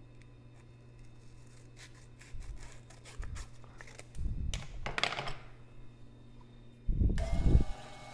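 Lathe switched on about seven seconds in: a thump as the motor starts, then a steady running hum with a whine as the chuck spins up. Before it, a few light clicks and a short rustle of handling.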